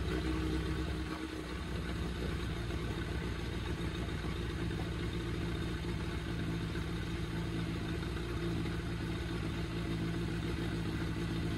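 Suzuki Bandit 600's inline-four engine idling steadily while its carburettors are being balanced.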